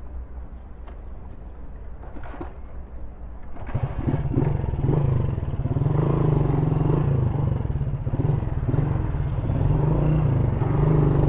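Single-cylinder engine of a 1999 Honda CG Titan motorcycle, stalled, started again about four seconds in, then running steadily and getting a little louder.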